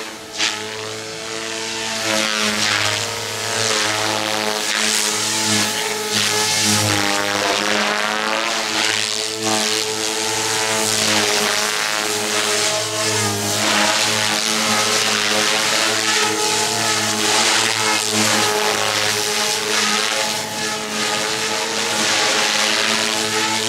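Electric SAB Goblin 420 RC helicopter flying aerobatics: a steady whine from the brushless motor and drive under the rotor sound, with repeated swells of blade whoosh as it flips and passes.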